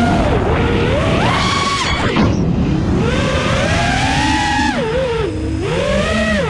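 FPV quadcopter's brushless motors and propellers whining, the pitch swinging sharply up and down with the throttle as the drone climbs, dives and turns, over a steady rush of air.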